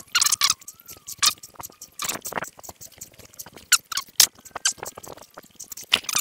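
Footsteps crunching on a muddy path, with rustling and knocks close to the camera, in irregular clicks and crunches. A faint thin squeak wavers through the first second or so.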